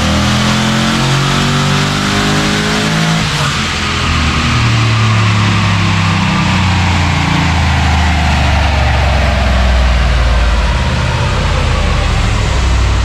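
Holden Commodore engine revving hard under load on a chassis dynamometer during a power run. The pitch climbs, dips briefly about three and a half seconds in, then climbs again. The run is the kind that shows around 500 at the tyres.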